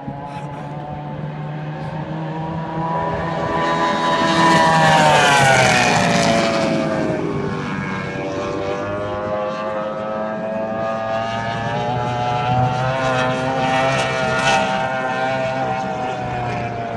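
Formula 1 two-seater powerboat's 400 hp engine running flat out as the boat races by: a high, buzzing engine note that grows loudest about five seconds in and drops in pitch as it passes, then keeps running at a steady pitch and swells again later.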